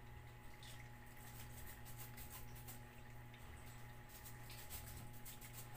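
Several cats eating off the floor: faint, irregular wet clicks and smacks of chewing and licking, over a steady low hum.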